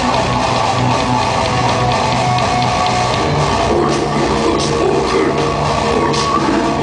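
Heavy metal band playing live: distorted electric guitar over bass and a drum kit. The cymbal and drum strokes come through more clearly from about halfway.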